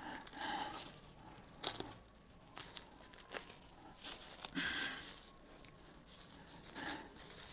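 Powder-free disposable gloves rustling and crinkling in short, faint bursts with a few small snaps as they are tugged onto the hands; they stick to the skin and go on with difficulty.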